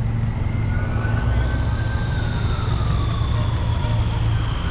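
Two emergency-vehicle sirens over a heavy vehicle engine rumble. One tone rises about a second in and holds high. A second, lower tone slowly winds down.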